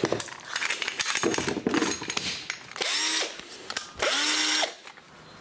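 Makita cordless drill triggered twice in short bursts, its motor whirring up to speed and stopping each time, after a couple of seconds of clicking and rattling.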